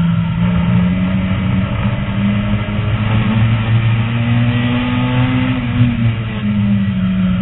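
Lightning Rod race car's engine running hard, heard from inside the cockpit; its pitch climbs steadily for a few seconds, then drops about six seconds in.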